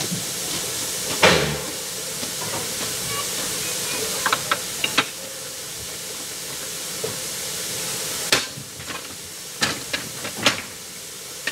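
Steady hiss of steam from a standing narrow-gauge steam locomotive, easing off about eight seconds in. A few sharp metallic clanks follow as a point lever in the ground frame is worked.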